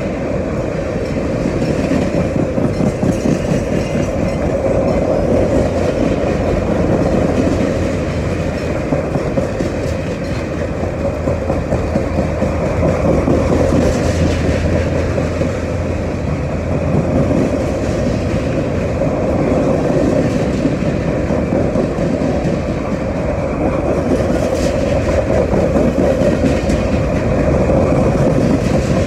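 Freight train cars loaded with open-top containers rolling past at close range: a steady rumble and clatter of steel wheels over the rail joints, going on without a break.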